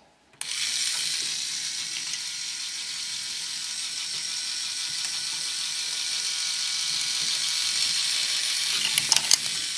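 K'NEX motor switched on about half a second in, driving the plastic chain lift: a steady whir and rattle of chain links running over gear teeth. A few sharper clicks come near the end.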